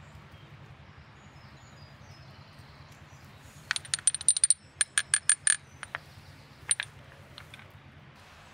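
Black pepper being hand-ground over a metal bowl: a quick run of about a dozen sharp, ringing metallic clicks in two seconds, then two more a second later.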